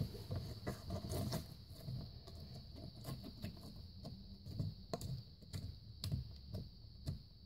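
Fingers poking and pressing a lump of glitter-glue-and-borax slime on a tabletop: irregular soft clicks and squelches.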